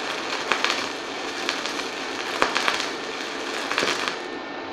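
Shielded metal arc (stick) welding with an E7018 low-hydrogen electrode at 90 amps, DC reverse polarity: the arc crackles and sputters unevenly, then stops about four seconds in. The welder judges the burn at this low setting not good and turns the current up afterwards.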